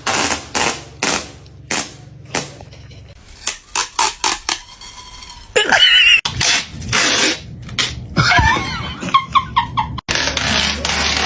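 Adhesive tape ripped off the roll in a string of short, sharp tears, with a cat gagging and retching in between, set off by the sound of the tape.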